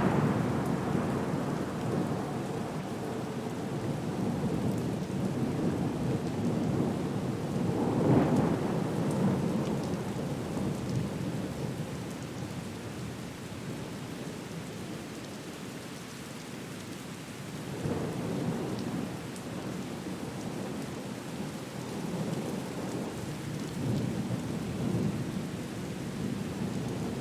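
Thunderstorm: steady rain with rolls of thunder rumbling in and fading, the strongest at the start and about 8 seconds in, and smaller rumbles later on.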